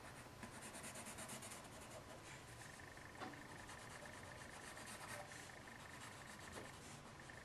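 Faint scratching of a Staedtler HB graphite pencil drawing short strokes on paper, with a few light taps of the pencil.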